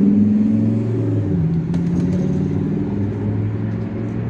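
Low, steady drone of a large road vehicle's engine running close by, its pitch shifting about a second and a half in.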